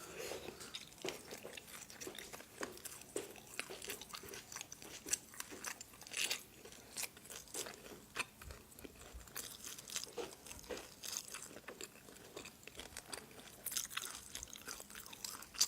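A person chewing and biting into crunchy food close to the microphone, with many irregular crisp crunches.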